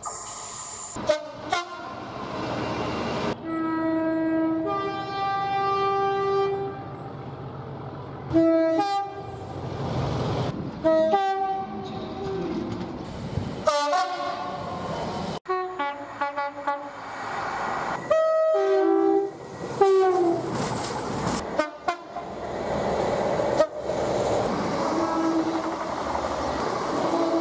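A run of short clips of British train two-tone horns, each a held blast of two notes, one after the other, with the rumble and rail clatter of passing trains between them. The clips change abruptly many times.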